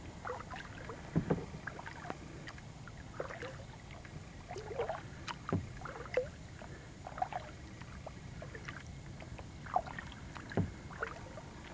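Kayak paddle strokes in calm water: the blade dipping and splashing with drips, irregularly spaced, with a few sharper knocks, the loudest about a second in and near the end.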